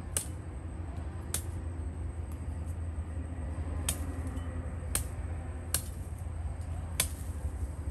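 Six sharp strikes at uneven intervals about a second or two apart, over a steady low rumble.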